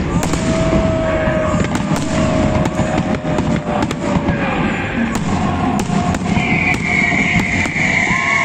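Fireworks salute going off in a dense, continuous crackle with many sharp bangs. A high steady tone joins about six seconds in.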